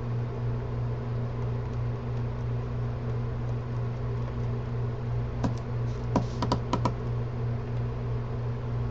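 Small sharp clicks of a screwdriver and screws against a camera's body, about six in quick succession just past the middle, as bottom screws are worked out. A steady low electrical hum runs underneath.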